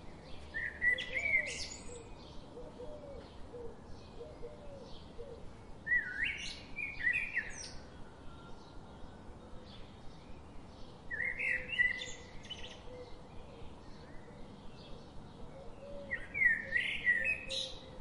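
A songbird singing a short warbled phrase four times, about every five seconds, with soft chirps between the songs.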